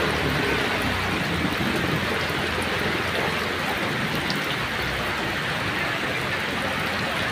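Heavy rain pouring steadily onto a flooded street, a dense, even hiss.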